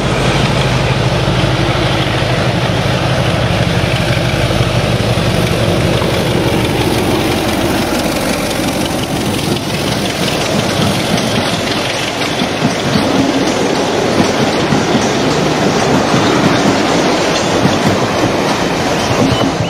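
A train of tank wagons rolling past: a steady rumble with wheels clicking over the rail joints, and a low hum under it for the first few seconds.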